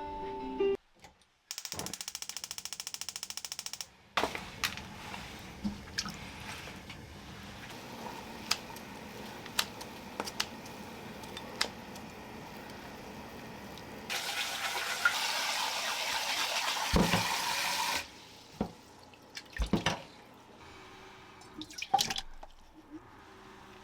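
Water running from a tap into a sink, in spells, with a louder stretch of running water in the middle and scattered clicks and knocks throughout.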